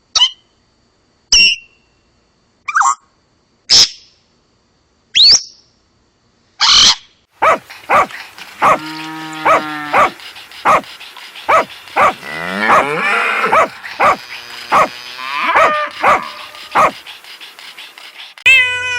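Animal calls: short, separate calls about every second and a half, then a busier stretch of overlapping, wavering calls over regular sharp clicks. Another call starts just before the end.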